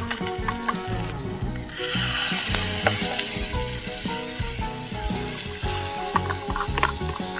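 Ground meat and tomato paste sizzling in a tiny miniature frying pan, with small clicks of a miniature spoon stirring against the pan. The sizzle jumps up suddenly about two seconds in and stays loud.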